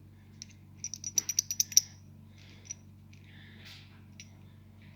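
Light metallic clicks and rattles from a roller rocker arm being handled, its needle bearing broken apart: a quick run of about eight clicks about a second in, then a few softer clicks and a rustle, over a faint steady hum.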